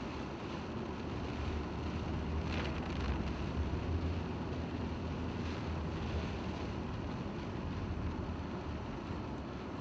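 Steady low rumble and rushing noise of a moving vehicle, heard from inside with rain on the window glass.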